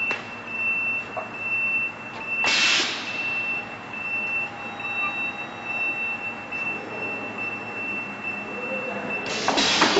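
Conveyor production line running with a steady high-pitched whine, broken twice by a short sharp hiss of released compressed air from the line's pneumatic cylinders, about two and a half seconds in and again near the end.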